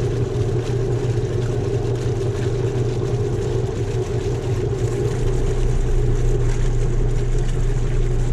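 Whirlpool direct-drive top-load washer running its agitation cycle: a steady motor-and-transmission hum, with a deeper rumble coming in about five seconds in. Freshly fitted with a new clutch, it is agitating normally.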